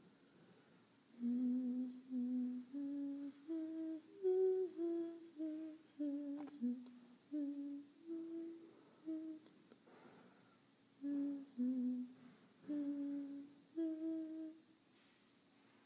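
A voice humming a slow, simple tune without words, in short held notes. It hums two phrases with a pause of about a second and a half between them.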